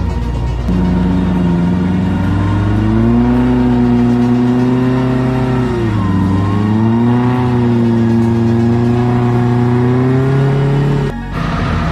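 Off-road 4x4's engine running under load, its revs rising and falling, with a dip about six seconds in before climbing again; the sound breaks off abruptly near the end and resumes as a steadier engine note.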